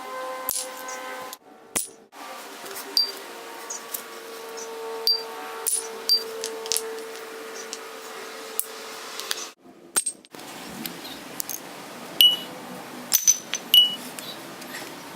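A scattered series of sharp metallic clicks and clinks, many with a brief high ringing ping, over a faint steady hum. The sound cuts out abruptly twice, about a second and a half in and near the middle.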